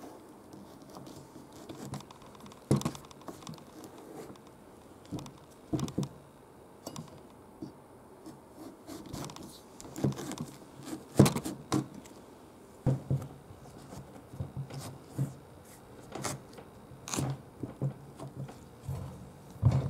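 Kitchen knife being forced into a whole, hard-skinned kabocha squash: irregular crunches and scrapes as the blade works through the tough rind and flesh, with sharp knocks as the squash and knife rock against the wooden cutting board.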